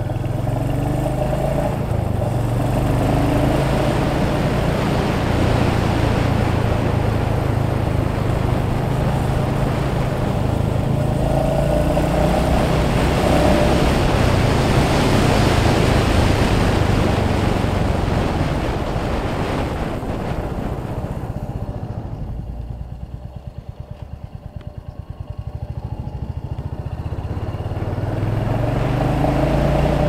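Royal Enfield Hunter 350's single-cylinder engine running as the motorcycle rides along, under a rush of air and road noise. About two-thirds through, the engine and the rush of air drop away for a few seconds, then the engine note climbs again near the end.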